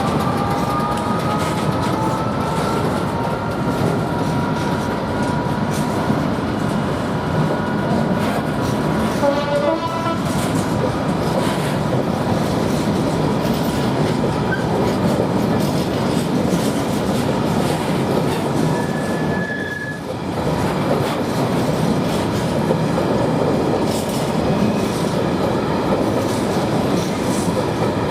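A train running past on the track, with the steady clatter of wheels over rail joints throughout. A few high tones slide slowly upward over the first few seconds.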